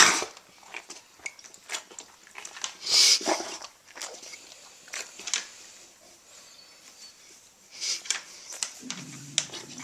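A dog's reverse sneezing: loud, rasping, noisy inhalations right at the start, again about three seconds in and near eight seconds, with small clicks in between.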